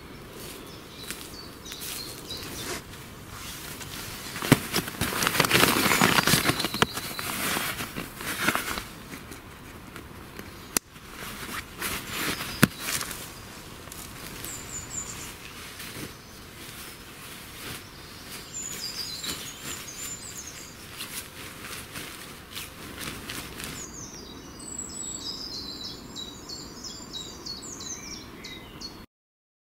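Rustling and handling of camping gear and footsteps in dry leaf litter as a sleeping pad, inflatable pillow and sleeping bag are laid out, loudest about five to eight seconds in. Birds chirp now and then, and steadily in the last few seconds.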